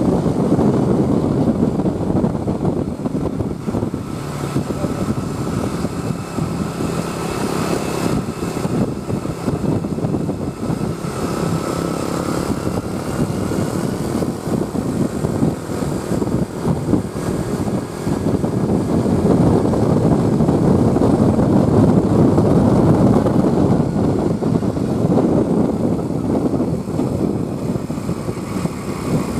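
Steady engine and road-traffic noise from a bus on the road, with no clear horn blast. It grows louder about two-thirds of the way in.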